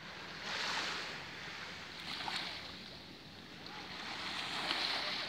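Sea waves washing on the shore with wind, a rushing hiss that swells and eases a few times.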